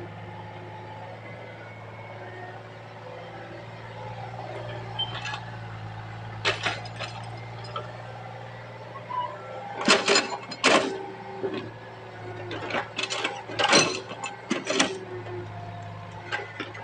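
Excavator engine running steadily with a low hum, with a series of sharp knocks that come thickest from about ten to fifteen seconds in.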